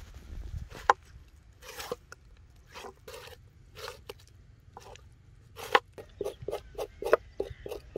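A serrated knife scraping the loosened dark skin off a piece of briefly scalded goat tripe on a wooden cutting board. The short scrapes come about a second apart, then quicken near the end to about three or four strokes a second.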